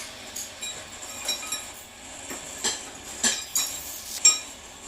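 Metal parts and tools clinking and knocking against each other: about nine light, irregular strikes, each with a short metallic ring, the loudest near the end.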